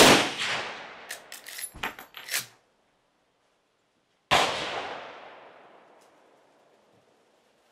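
Two rifle shots from a Marlin 336 lever-action in .30-30 Winchester, about four seconds apart, each ringing out with a long fading echo. Between them comes a quick run of metallic clicks and clacks as the lever is worked to eject the spent case and chamber the next round.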